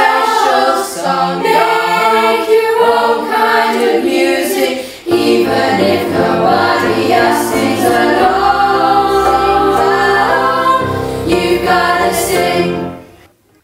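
A choir of children's voices singing in harmony. Lower sustained notes join about five seconds in, and the final chord fades out near the end.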